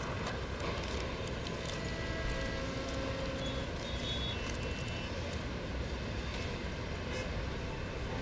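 City street ambience: a steady rumble of distant traffic, with faint passing tones over it.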